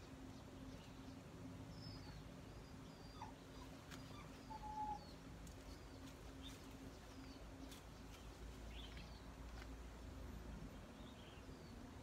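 Faint birds chirping here and there over a low steady hum, with one louder short call about five seconds in.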